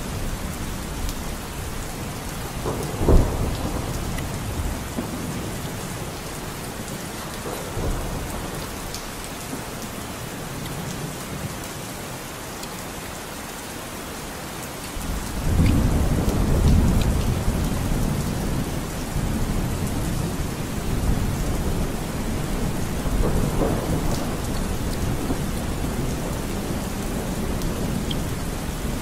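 Steady rain falling, an even hiss, with a deep low rumbling that swells about halfway through and carries on to the end. A short thump comes about three seconds in.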